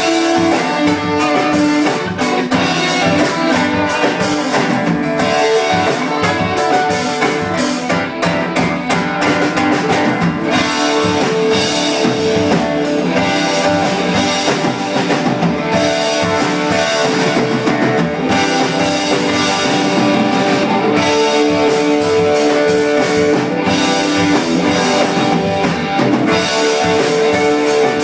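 Rock band playing live, electric guitar over a drum kit, with sustained guitar notes and steady drum hits.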